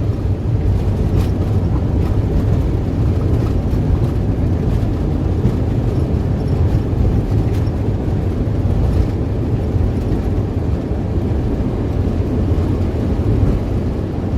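Boeing 737-800's CFM56-7B jet engines spooled up in reverse thrust during the landing rollout, heard from the cockpit: a loud, steady low rumble.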